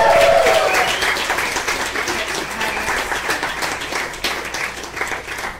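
Audience applauding, the clapping thinning out and dying down gradually toward the end.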